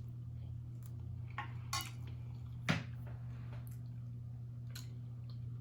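A fork or spoon tapping and scraping on a plate while eating: a handful of short separate clicks, the loudest nearly three seconds in, over a steady low hum.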